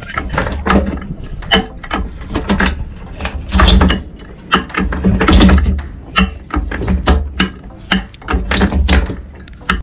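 Rusty anchor chain clanking over the gypsy of a manually cranked anchor windlass, with the ratchet clicking as the handle is worked and dull knocks as the links drop into the chain locker. The chain grips the gypsy poorly, so it takes many strokes of the handle to bring in each link.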